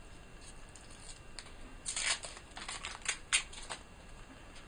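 Short plastic clicks and scratchy rustling from handling a Canon EOS 1200D camera body while fitting its battery, a cluster of clicks about two seconds in.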